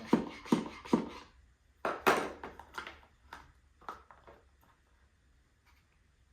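A few light knocks and taps, three quick ones in the first second and a louder knock about two seconds in, followed by a handful of fainter clicks that fade out.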